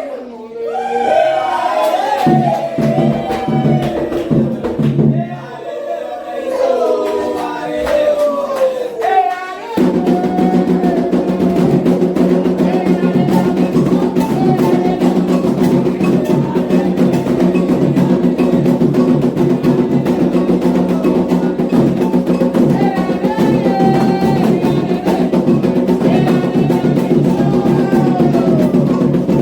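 Candomblé ritual music: a sung chant with sparse drum strokes from the atabaque hand drums, then about ten seconds in the full drumming comes in suddenly and loudly, in a dense steady rhythm, with the singing carrying on over it.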